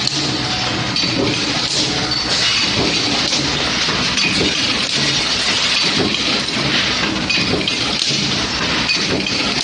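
Automatic hot nut forging line running: a loud, continuous clatter of metal on metal, with forging press strokes and the clinking of hot nut blanks.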